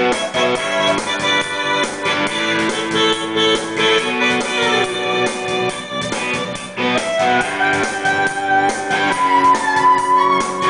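Instrumental music: keyboards playing held chords and a melody over a steady beat, with no singing.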